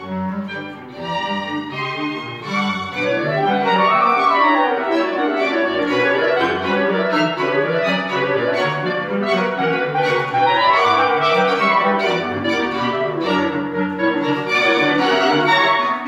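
Octet of four clarinets and a string quartet (two violins, viola, cello) playing contemporary classical music live. Rising and falling runs cross over one another, and the ensemble swells louder over the first few seconds.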